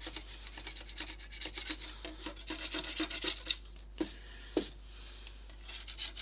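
Knife blade scraping paint off a bakelite radio case in many quick short strokes, with two sharper clicks about four and four and a half seconds in.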